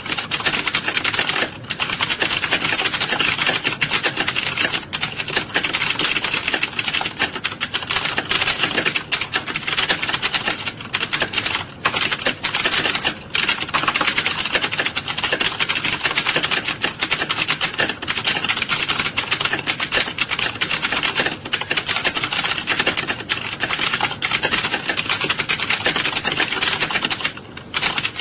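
A roomful of computer keyboards being typed on at once in a typing class: a dense, continuous clatter of keystrokes, thinning out for a moment a few times.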